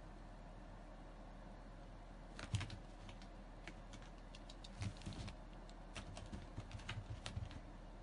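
A cat's paws thudding softly and claws catching on carpet tiles as it twists and pounces after a laser dot: irregular light taps and clicks, one at about two and a half seconds and a busy run from about five seconds on.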